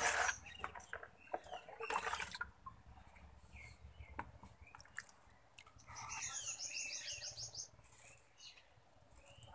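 Birds chirping in short high calls, with a rapid trill of repeated high notes about six seconds in. A short burst of noise at the very start is louder than the calls.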